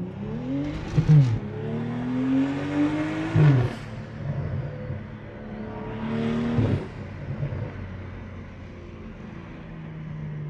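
BMW car engine accelerating through the gears, heard from inside the cabin. Its pitch climbs and drops sharply at each of three gear changes, then holds steady at a cruise.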